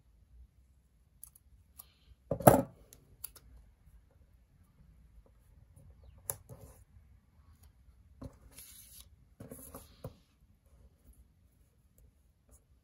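Paper and sticker sheets being handled at a desk: a sharp knock about two and a half seconds in, a few light clicks, and a rustling scrape of paper near the end.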